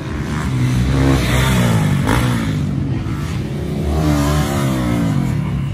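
Dirt bike engines revving hard as bikes ride past on the track, the engine pitch rising and falling twice, about a second in and again about four seconds in.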